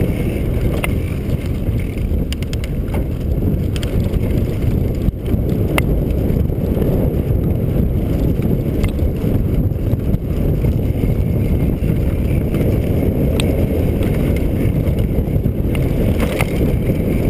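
Mountain bike descending a dirt trail at speed: a steady, loud rumble of wind on the microphone and tyres on the ground, with scattered sharp clicks and rattles from the bike over bumps.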